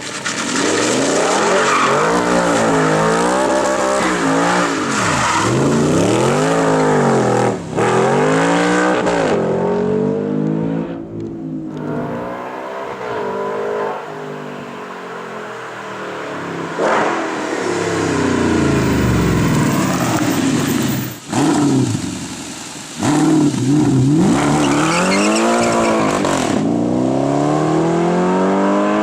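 Audi R8's straight-piped 4.2-litre V8 revving up and down over and over, its pitch rising and falling every second or two.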